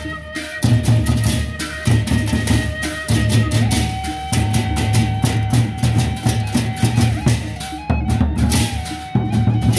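Sasak gendang beleq ensemble playing: large double-headed barrel drums beat a steady driving rhythm under sharp clashes of big hand cymbals. A long held high note, the suling bamboo flute, joins about a third of the way in.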